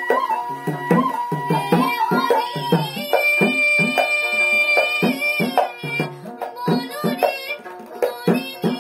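Assamese Kamrupiya folk-song music: a hand drum plays a quick rhythm of low strokes that bend downward in pitch, under a held melody line that brightens about three seconds in.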